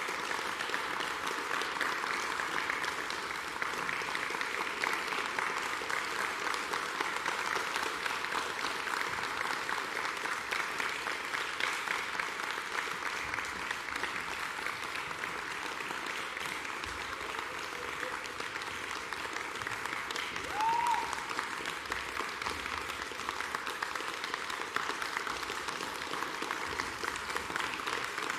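Audience applauding steadily in a concert hall, with one short call rising above the clapping about three-quarters of the way through.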